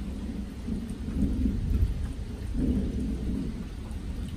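Rolling thunder: a deep, continuous rumble that swells twice, about a second and a half in and again just before three seconds.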